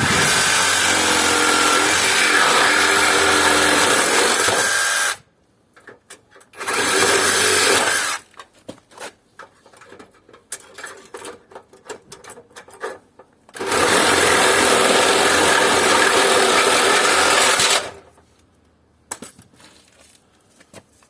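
Power cutter running in three bursts, about five seconds, a second and a half, and four seconds long, cutting through an air conditioner's radiator tubing. Light knocks and clinks of metal pieces between the bursts.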